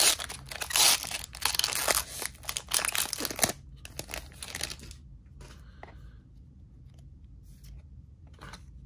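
Foil trading-card booster pack wrapper being torn open and crinkled, stopping about three and a half seconds in. Only faint rustling follows.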